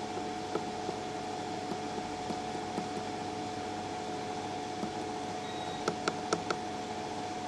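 Steady electrical hum with a constant tone, and a quick run of four or five small clicks about six seconds in: buttons pressed on the rework station's temperature controller to set the top heater.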